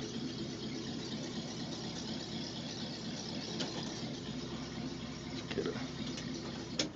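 The 1951 Ford pickup's flathead engine idling slow and steady, then switched off near the end, its sound cutting off abruptly.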